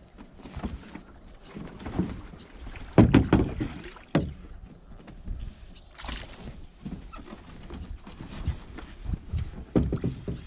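Small jon boat being poled through shallow marsh water: irregular sloshes and knocks as the push pole strokes, the loudest about three seconds in.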